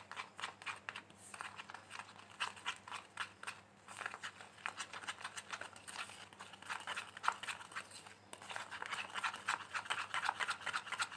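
A spoon stirring and scraping against a small bowl, mixing milk powder into a little milk: a quick, irregular run of clicks and scrapes.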